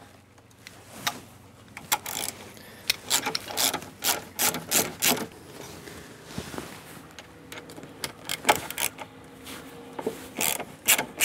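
Socket ratchet clicking in short runs as the motorcycle's fuel tank mounting bolts are undone, with a few sharper metal clicks and knocks between.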